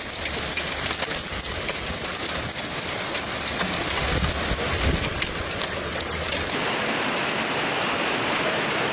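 Heavy rain and rushing floodwater, a steady noise. About six and a half seconds in the sound changes abruptly, losing its light crackle and low rumble and turning into a smoother hiss.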